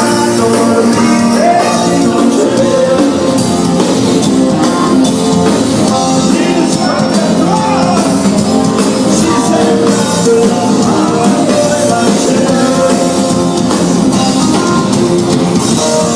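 Rock band playing amplified on stage during a sound check, with a voice singing over the band.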